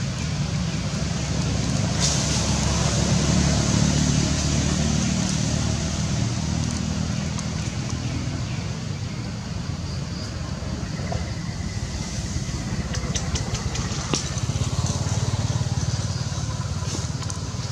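Steady low rumble that swells a few seconds in and again near the end, with a quick run of faint clicks late on.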